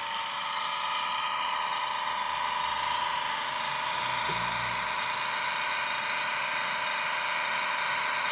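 Diesel engine sound from the Heljan Hymek model locomotive's Legomann DCC sound decoder, played through a small speaker fitted in the fuel tanks: a steady, pretty noisy engine drone with a strong whine-like tone and little bass.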